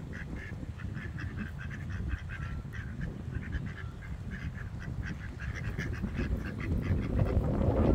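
Mallard ducks calling, short calls following one another in quick succession, over a steady low rumble that grows louder near the end.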